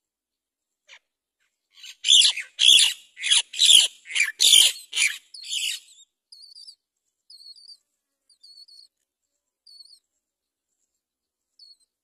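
Great myna nestlings begging in the nest: a run of about seven loud, harsh calls starting about two seconds in, then short, thin high notes about once a second.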